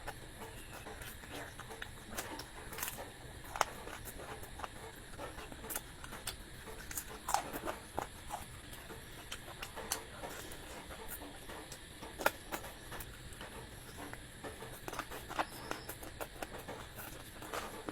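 Close-miked eating sounds: irregular wet mouth clicks and smacks of someone chewing food.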